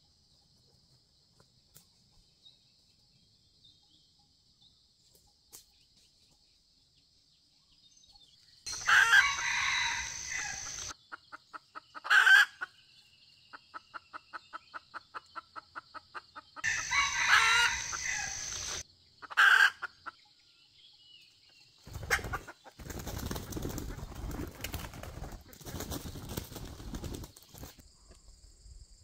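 Red junglefowl crowing twice, with a quick run of about six clucks a second between the crows. This is followed by several seconds of wing flapping and scuffling in dry leaves.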